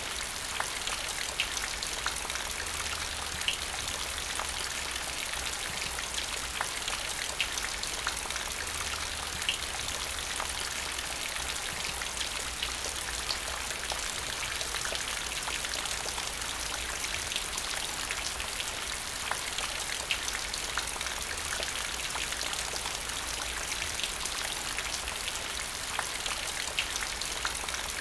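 Steady rain falling, a continuous hiss with single louder drop impacts standing out every second or two.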